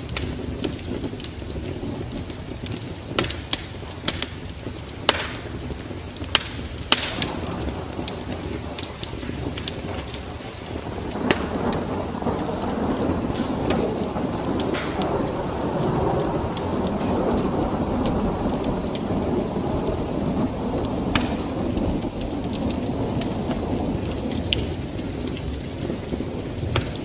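Wood fire burning in a fireplace: scattered sharp crackles and pops over a low, steady rush of flames that grows fuller about a third of the way in.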